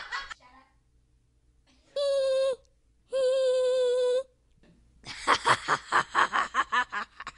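Two steady, flat-pitched held notes, one brief and one about a second long, then from about five seconds in a burst of rapid child's laughter, about five pulses a second.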